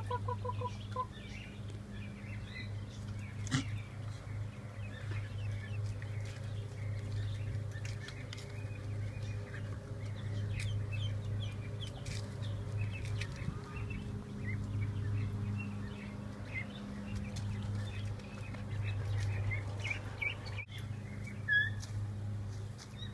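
Ducklings peeping: many short, high chirps scattered throughout, over a steady low hum.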